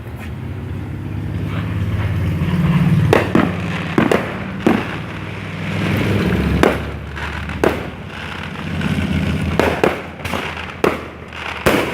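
Fireworks going off: about ten sharp bangs at uneven intervals over a continuous low rumble.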